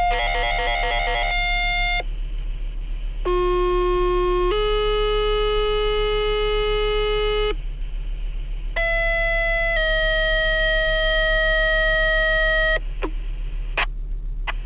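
Two-tone sequential fire pager alert tones over the radio. Three pairs of steady tones sound, each a short tone of about a second then a longer tone at a different pitch, a different pitch pair for each department, with a few short radio clicks near the end.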